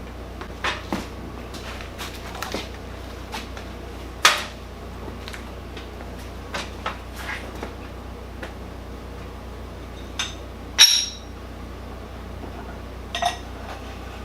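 Scattered knocks and clinks of metal parts and blocks being handled around a milling machine, a dozen or so separate hits with two louder ones; the one about eleven seconds in is a sharp metallic clink that rings briefly. A steady low hum runs underneath.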